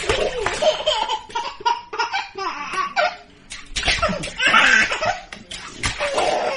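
Small child laughing hard in repeated bursts.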